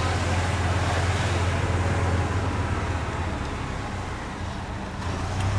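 Golf cart driving along, its motor giving a steady low hum over road and wind noise; the hum fades after about two seconds and comes back strongly near the end.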